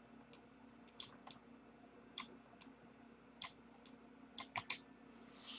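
Faint, irregular clicks of a computer mouse, about a dozen of them, over a low steady hum.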